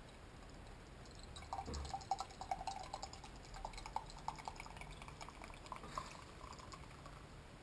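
A soft drink poured from an aluminium can into a stemmed glass: from about a second and a half in, the liquid runs and splashes unevenly into the glass as it fills.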